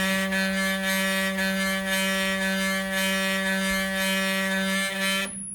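NEMA 24 stepper motor turning the worm of a Vertex indexing table, running at one steady speed with a pitched whine. It stops abruptly about five seconds in, once the table has indexed one division of 17.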